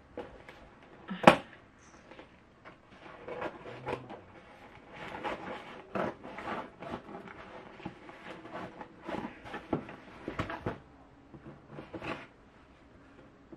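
Cardboard shipping box being opened and unpacked by hand: irregular rustles, scrapes and knocks, with one sharp knock about a second in.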